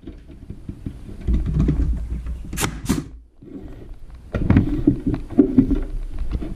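A staple gun fires twice into plywood, with the box bumping and sliding on the wooden bench. Then a hammer taps the plywood marten box in a quick, irregular run of knocks, driving the staples home.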